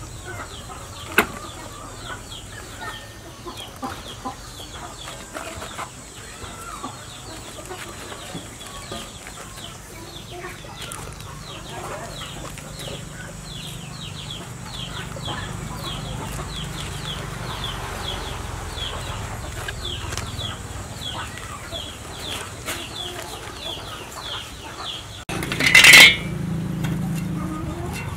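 Chickens calling in the background, a long run of short, high, falling cheeps several times a second. About 25 seconds in, a sudden loud metal scrape and clatter of a spatula against a wok.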